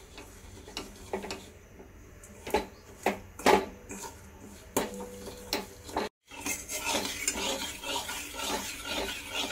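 Flat metal spatula scraping and knocking against an iron kadai while stirring sugar as it melts into caramel, in short separate strokes. After a brief break about six seconds in, the scraping through the now-liquid caramel comes denser and more continuous.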